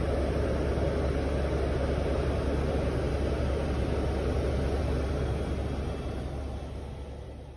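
Helicopter in flight heard from inside the cabin: a steady low drone of engine and rotor with a broad rushing noise, fading out over the last second or two.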